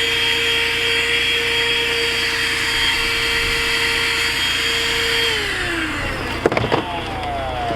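HOTOR 12-volt cordless car vacuum running with a steady motor whine, then switched off about five seconds in, its pitch falling as the motor winds down. A couple of knocks follow near the end.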